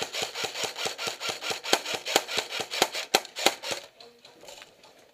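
Rapid airsoft gunfire: a string of sharp cracks at about five a second, the loudest in its second half, stopping about four seconds in.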